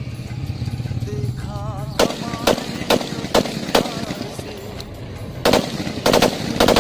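M4A1 gun firing: about five single shots roughly half a second apart, then rapid bursts of several shots near the end.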